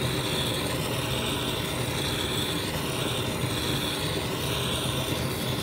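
Handheld gas-canister torch burning with a steady hiss. Its flame is heating the aluminium fan housing so the bearings can be pressed in.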